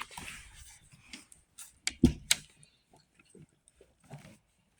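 Handling noise of a book being held and opened: scattered light clicks and paper rustles, with one sharper knock about two seconds in.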